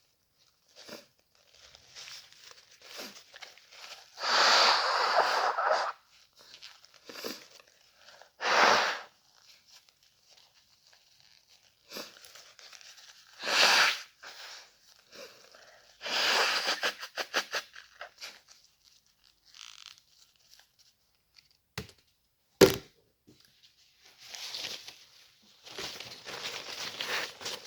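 A person blowing their nose hard several times, each blow a noisy burst of a second or two, one of them fluttering. Between the blows there are sniffs and tissue rustling, and a single sharp click about two-thirds of the way through.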